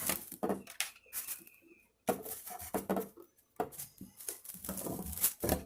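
Rubber spline being pulled out of the channel of a window screen frame, giving irregular scraping, rubbing and crackling, with the old screen mesh rustling as it is worked loose.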